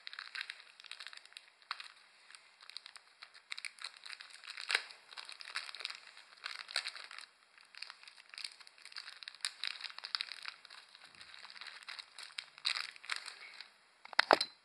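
Thin plastic Lego parts bags rustling and crackling as they are handled and opened, in quick irregular crackles with a few sharper ones.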